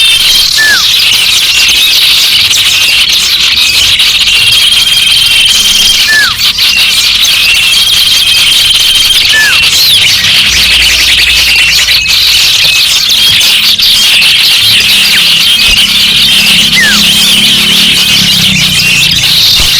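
A loud, dense chorus of many small garden songbirds calling at once, chirping and trilling. A short downward-gliding whistle recurs every few seconds, and a few high notes are held for a second or so.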